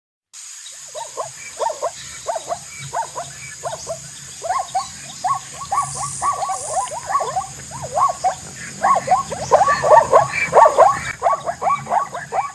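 Zebra calling: a rapid run of short, barking yelps, repeated several times a second and louder in the last few seconds.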